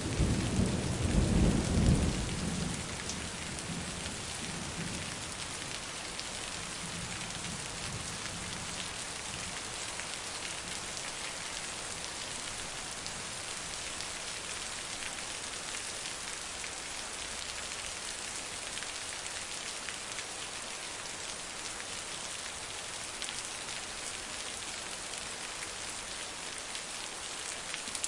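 Heavy rain falling steadily. A loud clap of thunder breaks in at the start and rumbles away over the next several seconds.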